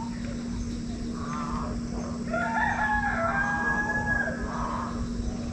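A rooster crowing once, a long drawn-out call starting about two seconds in, over a steady low hum.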